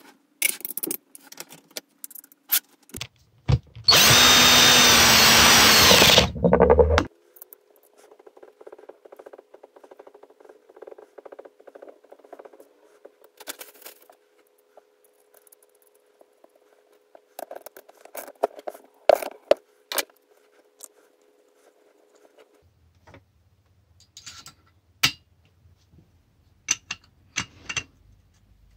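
A hand-held power tool runs in one loud burst of about three seconds, a few seconds in. The rest is scattered light clicks and knocks of tools and parts being handled, under a faint steady hum.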